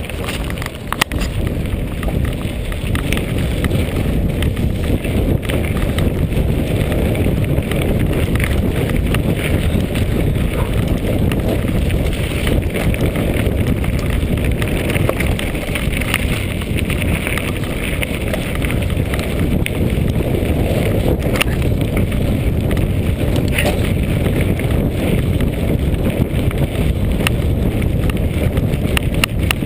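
Mountain bike rolling along a rough gravel track, heard from a chest-mounted camera: wind buffeting the microphone with a steady rumble, and the tyres crunching and knocking over loose stones with frequent short rattles.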